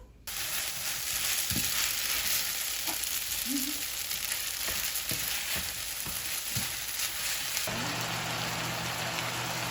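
Food sizzling in a hot frying pan, a steady hiss with a few light utensil taps as it is stirred.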